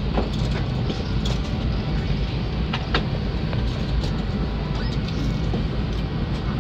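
Steady airliner cabin noise in flight, a dense low rumble with a hiss over it, and a few faint clicks.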